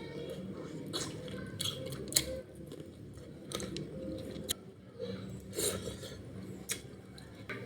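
Close-up eating sounds: chewing food, with irregular sharp crisp clicks, the loudest about two seconds in.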